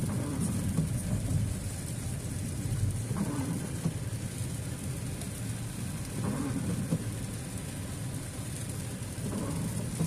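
A car driving on a wet road in the rain: a steady low rumble of engine and tyres, swelling about every three seconds.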